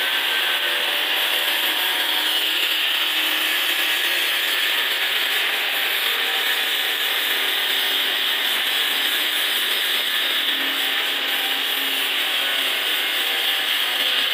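Angle grinder with a sanding pad running steadily, the pad rubbing along the edge of a stone slab as it grinds and smooths the edge.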